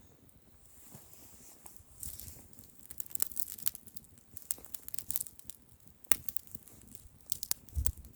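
Wood bonfire crackling, its pops and snaps sparse at first and coming thick from about two seconds in.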